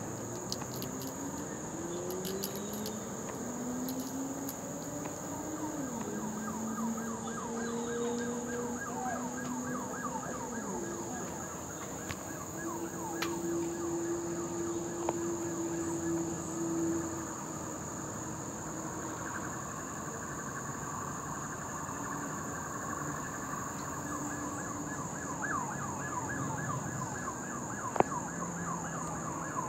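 Steady high-pitched chorus of insects, crickets or similar, with a distant emergency-vehicle siren wailing, its pitch slowly rising and holding, then turning to a quicker repeated warble later on. A single sharp click comes near the end.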